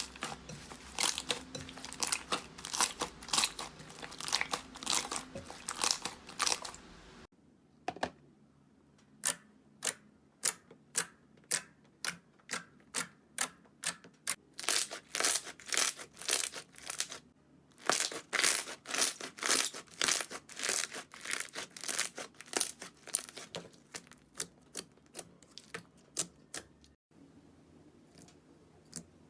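Slime being pressed, squeezed and pulled by hand, giving dense runs of crackles and pops in quick bursts. The sound changes abruptly about a quarter of the way in and again near the end.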